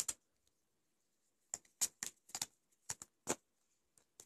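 Magic: The Gathering cards being thumbed through one at a time in the hands: a run of about eight short, light clicks of card edges snapping past each other, starting about a second and a half in.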